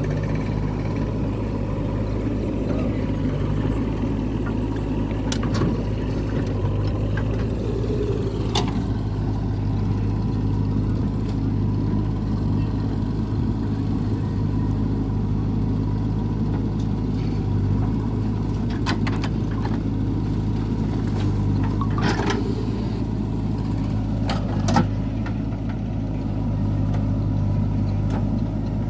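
Heavy diesel engine of a backhoe loader or tractor running steadily under work, with a handful of sharp knocks, the loudest near the end.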